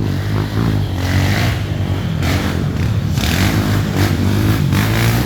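Off-road motorcycle engine running and revving, its pitch rising and falling.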